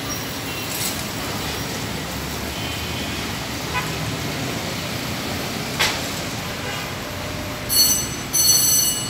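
Steady road-traffic noise with faint horns. Near the end a vehicle horn gives two loud, high-pitched toots, the second longer. A single short knock comes a little after the middle.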